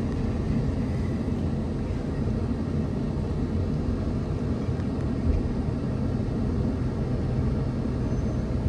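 Steady low engine rumble from running machinery, with a faint thump about five seconds in.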